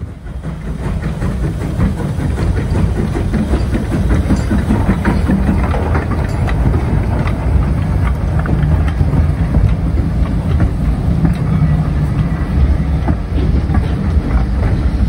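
Hawthorn Leslie saddle-tank steam locomotive hauling passenger carriages slowly past: a steady low rumble of the engine and rolling stock, scattered with clicks of wheels over the rail joints. It grows louder over the first couple of seconds as the train draws near.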